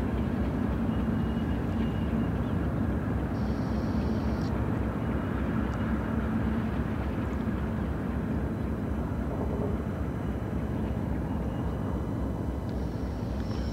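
GE ES44DC diesel-electric locomotive's V12 engine running under power as it moves a string of freight cars, a steady low diesel drone.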